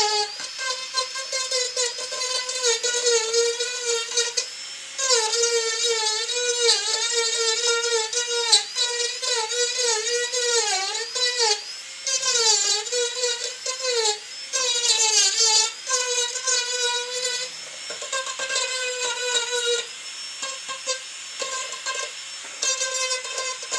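Marathon micro motor handpiece spinning a knife-edge diamond burr at high speed: a steady high whine that sags in pitch again and again as the burr bites into the wood, then recovers when it eases off. The whine is steadier and fainter in the last few seconds.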